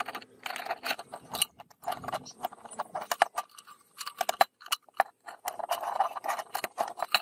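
Rusty sheet-metal parts and wire bail of an old Feuerhand hurricane lantern rattling, clinking and scraping as they are handled and taken apart. It comes as rapid runs of clicks with brief pauses between them.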